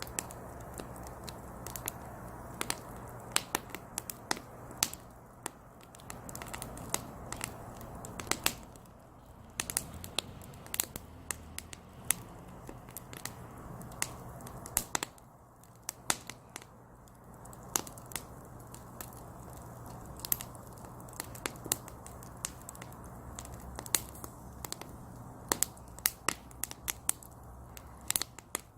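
Firewood burning in a small brazier: a soft rushing hiss of flames with frequent sharp, irregular crackles and pops as the wood burns.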